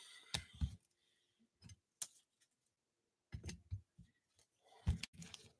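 Faint, scattered clicks and taps of trading cards and their packaging being handled, about seven short knocks spread over several seconds.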